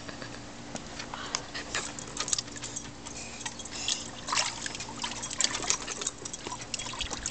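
Small, irregular splashes and drips as a toddler pats and plays in the shallow water of an inflatable kiddie pool, over a faint steady hum.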